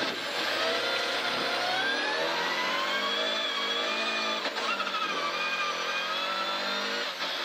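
Volvo 940 Group H rally car's engine, heard from inside the cabin, revving up hard under acceleration in second gear. About four and a half seconds in, the pitch drops briefly as it shifts up to third, then it pulls and climbs again.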